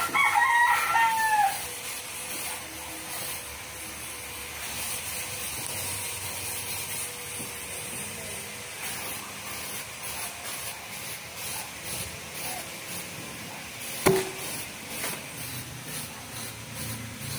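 A rooster crowing at the start, one drawn-out call that falls in pitch at the end. About fourteen seconds in comes a single sharp crack, the CO2 air rifle firing.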